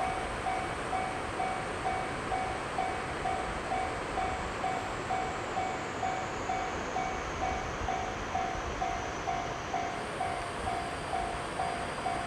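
Japanese railway level-crossing warning bell ringing in a steady, even rhythm of a few strokes a second. Under it runs a steady noise, with a faint high tone that falls slowly about halfway through, as a train runs through the crossing.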